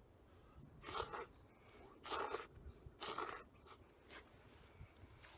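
Noodles of instant miso ramen being slurped, three times about a second apart, followed by a couple of faint clicks.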